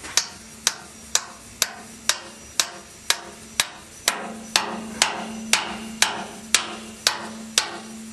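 A hammer strikes the head of a fitted bolt about twice a second, driving it down into its hole in the engine's channel-iron underbase. From about halfway through, a low ring follows each blow.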